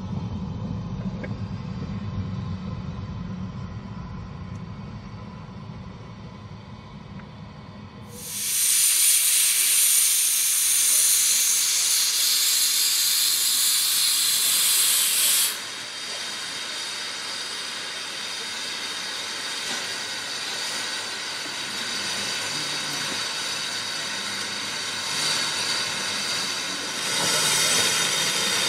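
A narrow-gauge steam train rumbles past for the first eight seconds or so. Then a small steam locomotive hisses loudly as it blows off steam at its safety valves. The hiss cuts off suddenly about halfway through, leaving a softer hiss that swells again near the end.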